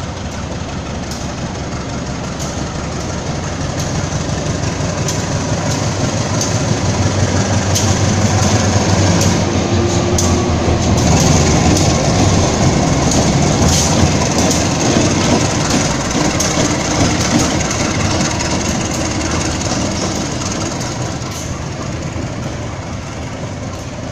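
Two coupled diesel locomotives running light past on a nearby track. Their engine drone and wheel rumble build to a peak about halfway through and then fade as they move away, with wheels clicking over rail joints.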